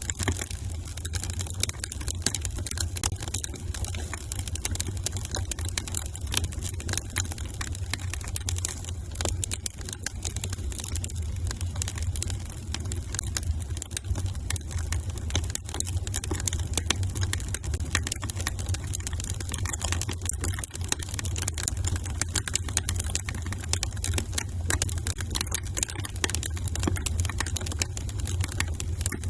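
Wood fire crackling in a fireplace: a dense run of irregular small pops and snaps over a steady low rumble.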